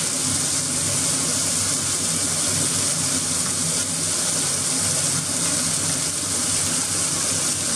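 Onions and tomatoes frying in hot oil in an iron kadai: a steady sizzling hiss, with a steady low hum underneath.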